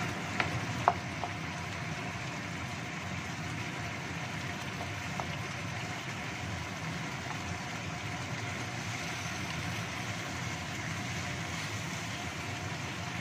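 Chicken in sweet soy sauce sizzling and simmering in a wok over a gas burner, a steady noise, while a wooden spatula stirs and knocks against the wok a couple of times about a second in.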